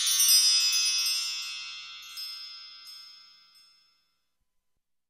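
Chime sound effect: many high bell-like tones ringing together and fading away, with a few lighter strikes about two and three seconds in, gone by about three and a half seconds.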